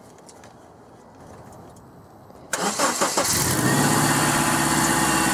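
The 1999 Subaru Forester's EJ25 flat-four engine starting suddenly about two and a half seconds in, its note rising briefly, then settling into a steady idle.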